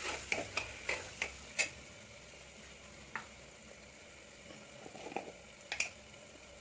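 Steel ladle scraping and clinking against the inside of an aluminium pressure cooker while onion-tomato masala is stirred, over a soft steady sizzle of the masala frying in oil. The stirring knocks come quickly for the first couple of seconds, then only now and then.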